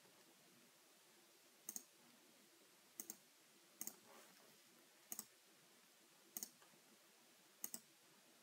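Faint computer mouse button clicks: six quick double ticks about a second apart, as dimensions are placed on a CAD drawing.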